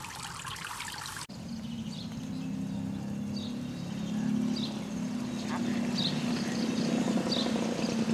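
Water pouring and trickling into a basin, cut off abruptly after about a second. Then a steady low hum, with short high chirps repeating about once a second and growing slowly louder.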